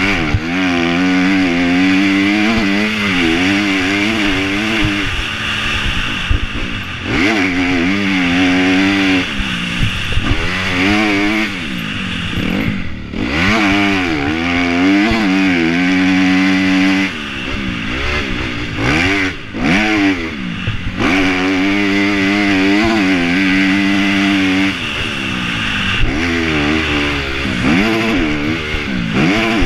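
Motocross bike engine revving up and falling back again and again as the throttle is worked through corners and over jumps on a sand track, with brief throttle-offs about thirteen and twenty seconds in. Heard close up from the rider's helmet, with a steady rush of wind.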